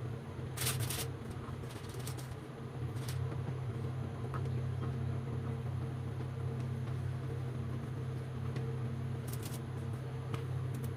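A steady low mechanical hum, like a motor or fan running, with a few short clicks and scrapes about a second in, around two and three seconds in, and twice near the end.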